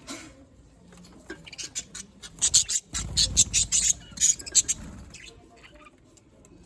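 Budgies pecking and crunching food: a quick run of sharp clicks and crackles that bunches up between about one and a half and five seconds in, with a dull low rumble through the middle.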